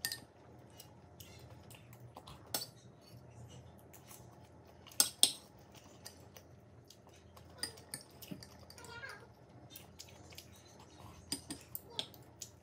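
A metal spoon and chopsticks clinking and scraping against a ceramic plate and bowl while eating: scattered sharp clinks, the loudest two together about five seconds in, over a faint steady low hum.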